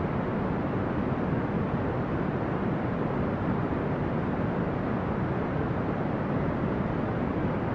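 Steady brown noise: an even, unchanging hiss weighted toward the low end, with little high treble.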